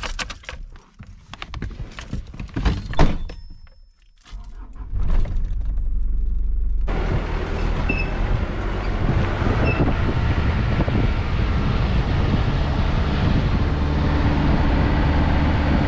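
Keys jingling and clicking as the ignition key of a Ford Courier ute is turned, then the engine starts about four to five seconds in. From about seven seconds on, the steady noise of the ute driving along a gravel dirt track: engine running with tyre and road rumble.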